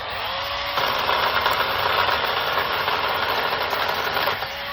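Kobalt 24-volt brushless battery chainsaw spinning up with a rising whine, then cutting through a branch: a loud, steady rasp of the chain in wood for about three and a half seconds. Near the end the chain runs free again.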